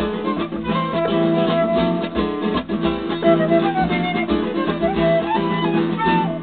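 Live acoustic music with no singing: a guitar strummed in a steady rhythm while a flute plays a wandering melody over it.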